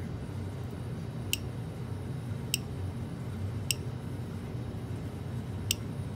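Hellgate FPV lost-drone buzzer giving its countdown clicking, four short high ticks roughly a second or two apart. It has not deactivated after power was removed.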